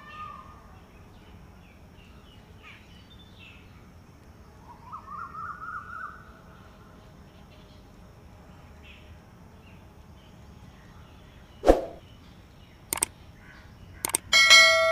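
A short run of rising bird notes about five seconds in, over quiet outdoor background. Near the end come a few sharp clicks, then a bright ringing chime: the mouse-click and bell sound effect of an animated YouTube subscribe button.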